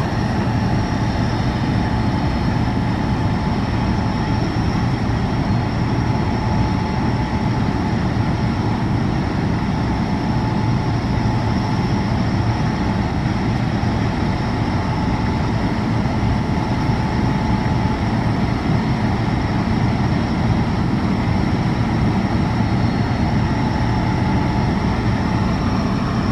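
Natural gas compressor station running loudly and without a break: a dense, steady low rumble with thin steady whining tones over it.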